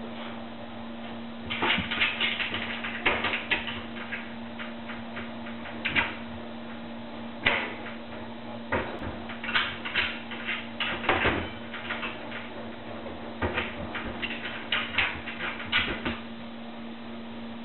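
Kitchen cabinet doors rattling and knocking in repeated bursts as a dog paws and noses at them, the doors held shut by rope tied round their knobs.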